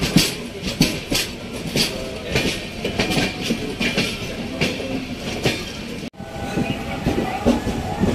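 Passenger train wheels clicking over rail joints, uneven clacks a couple of times a second over a steady rumble. About six seconds in the sound breaks off and a steadier rumble with a faint hum carries on.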